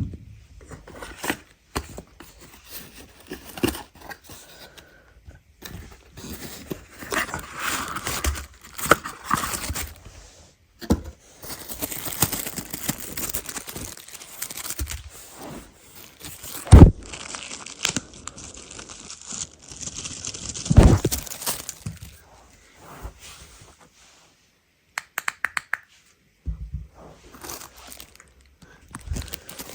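A phone tripod's packaging being opened by hand: plastic and paper wrapping crinkling and tearing, with scattered clicks and a few loud knocks.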